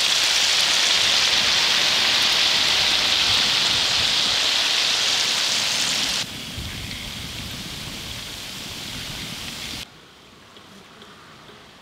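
Chunks of tuna deep-frying in a large wok of sesame oil: a loud, steady sizzle. It drops abruptly to a quieter sizzle about six seconds in, and cuts to faint background near the end.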